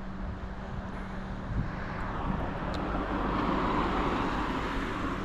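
Distant engine noise passing by, a steady rumble that swells to its loudest about four seconds in and then fades.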